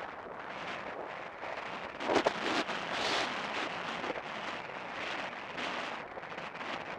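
Wind rushing over a helmet-mounted camera's microphone as a horse gallops across open grass. A few sharp thumps come about two seconds in.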